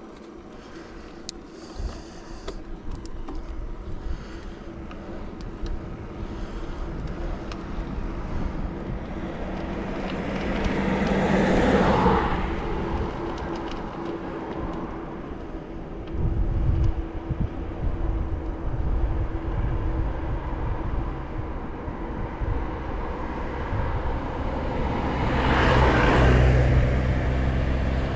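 Two motor vehicles pass by on the road, each one building up and then fading away, the first about twelve seconds in and the second near the end. A low rumble runs underneath from about halfway through.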